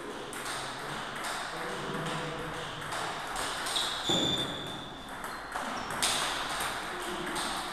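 Table tennis rally: the celluloid-type plastic ball clicking off rubber-faced paddles and the table top in quick succession, point after point of sharp ticks.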